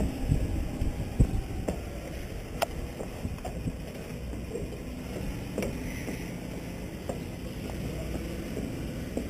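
Footsteps climbing wooden stair treads, a series of irregular knocks that thin out after the first couple of seconds, over a steady low rumble.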